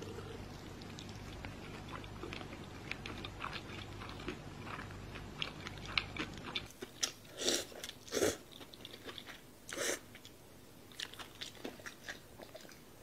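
Close-miked chewing of seaweed-wrapped kimbap: a run of small wet mouth clicks and crunches, with a few louder smacks a little past halfway.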